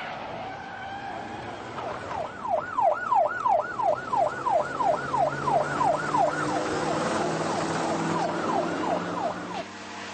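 Police car siren yelping, its pitch rising and falling about three times a second, over a car engine. The siren starts about two seconds in and fades out just before the end.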